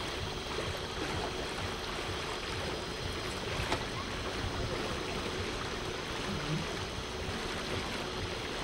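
Steady rush of water and motion noise from a small tour boat travelling along a river.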